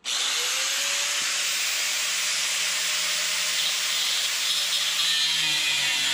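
A power cutting tool cutting through steel: a loud, steady hiss that starts suddenly, with a faint whine rising in its first second.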